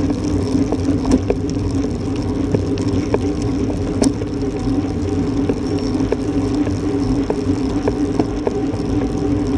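Wind buffeting a bike-mounted camera's microphone over the hum of road-bike tyres on asphalt, steady throughout, with scattered small ticks and knocks.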